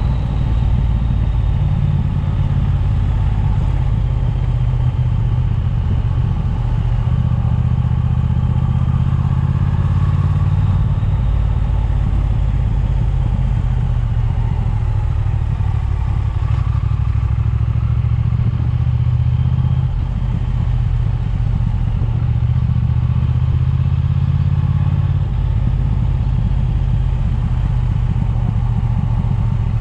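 Triumph motorcycle engine running while riding along at road speed, mixed with wind noise on the chest-mounted camera's microphone. The engine note shifts several times as the throttle changes.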